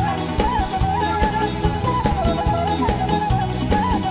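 Band music for a Batak tortor dance: a steady drum-kit beat under a wavering, ornamented lead melody.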